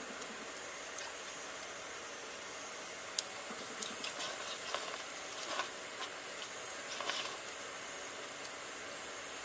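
A steady hiss, strongest in the high range, with scattered faint clicks and ticks.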